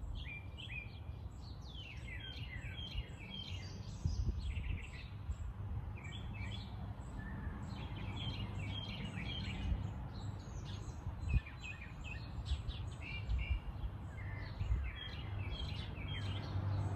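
Small songbirds chirping and singing in short, repeated high phrases throughout, over a steady low rumble of background noise with a few dull thumps.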